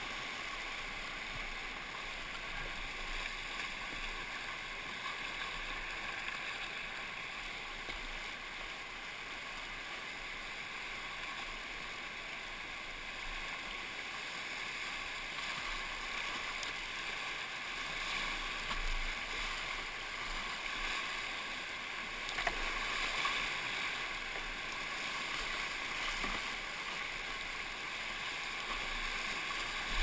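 Rushing whitewater of a class IV river rapid, heard from a kayak running it: a steady hiss of churning water, with a few louder splashes in the last third.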